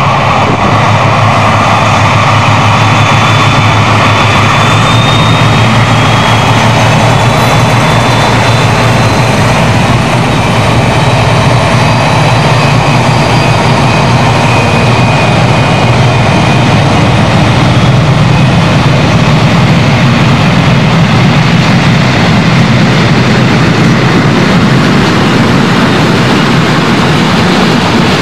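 Four V160-family diesel-hydraulic locomotives of different variants, working together at the head of a freight train, running loud and steady under load. High whistling tones ride over the deep sound of the engines.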